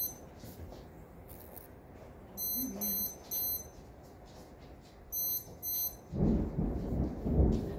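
A lightning detector beeping in short high-pitched beeps, three about two and a half seconds in and two more about five seconds in, each pair signalling a lightning strike within 15 miles. About six seconds in, a loud low rumble of thunder rolls in over steady rain.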